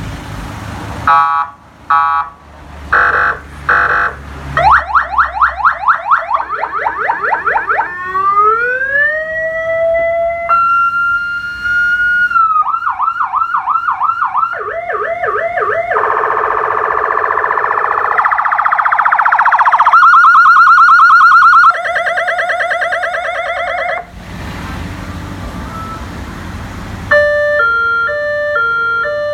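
Electronic emergency-vehicle siren run through its tone patterns. It gives short blasts, then fast repeated yelps, a slow rising wail, steady and rapidly warbling tones, and near the end a stepped tune of changing notes.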